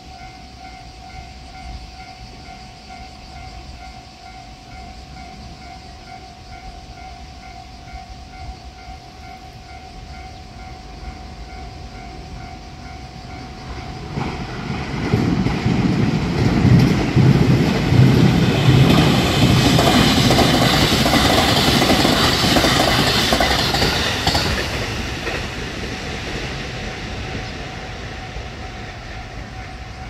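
Japanese level-crossing warning bell ringing in a steady repeating 'kan-kan' while a train approaches and passes. The train's rumble and clatter of wheels on the rails swell about halfway through, stay loudest for several seconds, then fade near the end as the bell keeps ringing.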